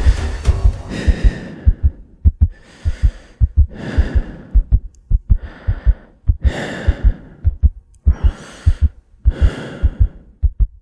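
Heartbeat sound effect, paired low thumps about once a second, under heavy breaths in and out every second or so. The tail of the music dies away in the first second or two.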